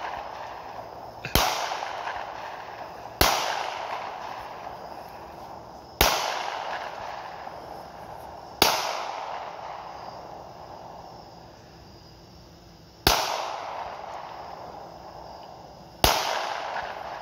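Handgun shots fired one at a time, six in all, spaced about two to four seconds apart. Each sharp crack is followed by a long echo that dies away over a couple of seconds.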